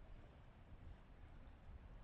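Near silence: a faint, steady low rumble with a light hiss.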